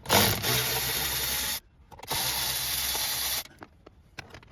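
A small power driver fitted with a 5.5 mm socket running in two steady bursts of about a second and a half each, with a short pause between them.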